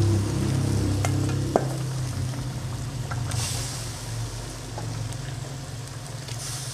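Raw squid and shrimp scraped with a slotted metal spatula from a stainless steel bowl into a wok of simmering chili sauce: the sauce sizzles steadily, with a sharp clink of the spatula on the bowl about a second and a half in and two louder surges of sizzling later on as more seafood drops in.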